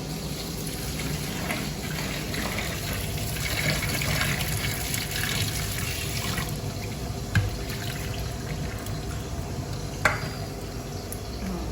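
Running water and splashing as pieces of hilsa and catla fish are washed, with two sharp knocks about seven and ten seconds in.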